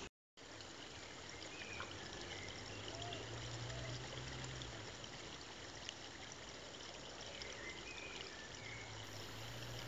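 Faint steady outdoor background noise, an even rushing hiss, with a low hum that comes and goes and a few faint short high chirps.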